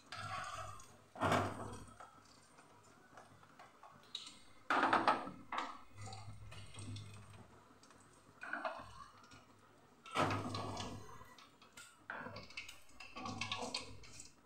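Steel spatula scraping and knocking against an aluminium kadai of frying oil in several separate strokes as fried chicken pakoda pieces are lifted out. The louder scrapes come about a second in, near five seconds and near ten seconds.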